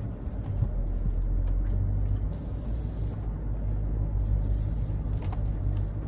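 Interior noise of a 4x4 driving off-road over sand: a steady low engine and road rumble, with a few faint knocks from the body.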